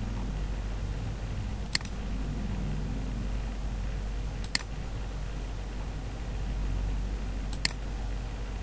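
Three short, sharp clicks a few seconds apart over a steady low hum.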